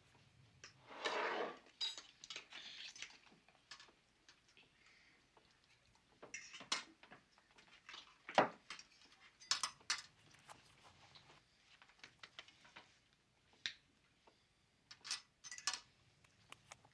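Scattered clinks and taps of a serving spoon against ceramic bowls and plates as mashed potatoes are scooped out, the sharpest knock about eight seconds in. A short soft rushing noise about a second in.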